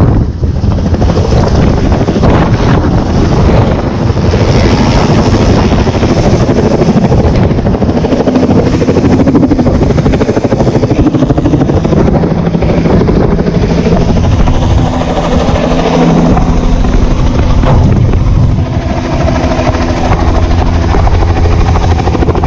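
Helicopter running close by, loud and steady, with a low drone that grows clearer in the second half.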